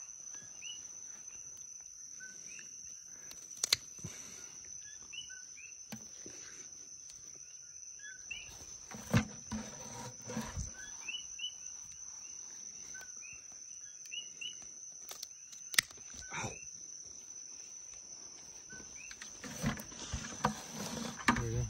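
Night insects trilling in one steady high tone, with short two-note chirps repeating throughout. A few sharp snaps and thumps stand out, from pruning shears cutting dragonfruit and fruit landing in a plastic bucket, with busier handling noise near the end.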